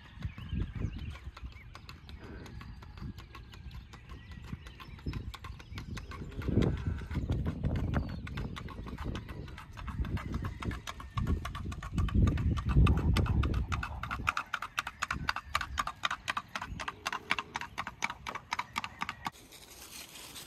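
Paso Fino horse's hooves hitting pavement in its rapid, even four-beat gait: a fast, steady clip-clop that cuts off near the end. A low rumbling noise sits under it for several seconds midway.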